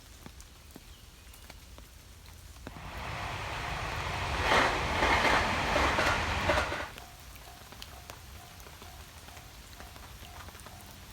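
Steady rain falling during an approaching typhoon, with a loud surge of rushing noise building for about two seconds, holding for about two more, then dropping off suddenly.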